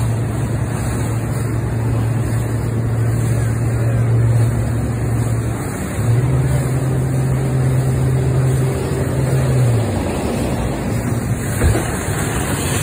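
A boat's engine runs at speed over choppy wake-filled water, a steady drone with wind and rushing water. About six seconds in the engine note steps up, then drops back near ten seconds. Just before the end the bow slams into a wake with a sharp thud and a burst of spray.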